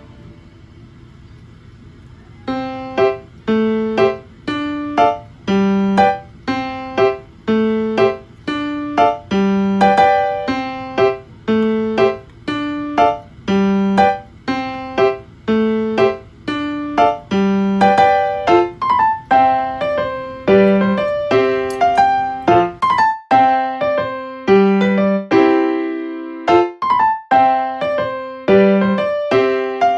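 Background music: a piano playing a quick melody of short, repeated notes, starting about two and a half seconds in after a brief lull.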